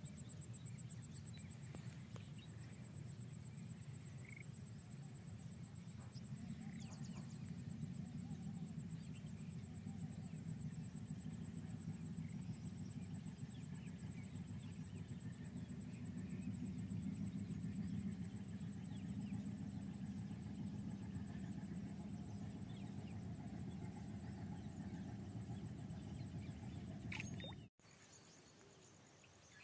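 Faint outdoor background noise: a steady low rumble with a thin, steady high-pitched whine above it. It cuts off abruptly near the end.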